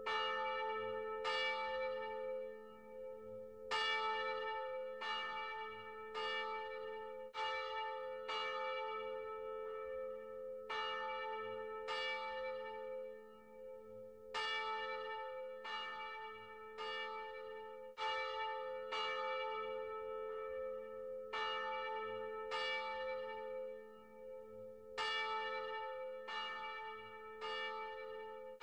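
A single church bell tolling the same note about once a second, with a few longer pauses between strokes, its low hum ringing on between them.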